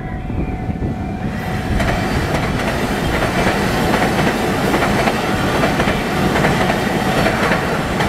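TEMU2000 Puyuma tilting electric train passing over a level crossing: a rush of wheel and rail noise with a clickety-clack swells up about a second and a half in. Under it sounds a steady tone from the crossing's warning signal.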